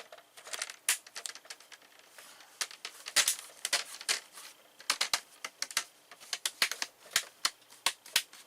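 Plastic screen bezel of a laptop lid being pressed back on, its clips snapping into place in a run of sharp, irregular clicks.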